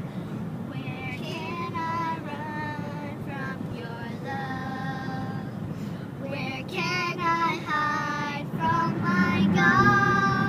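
A high voice singing a slow melody in phrases of long, wavering held notes, louder near the end.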